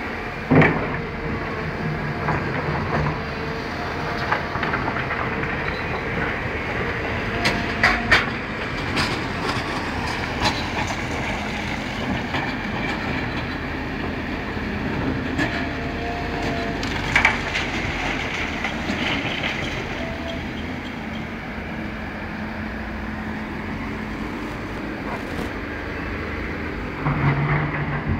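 Steady mechanical rumble of construction machinery running, with scattered sharp knocks and clanks.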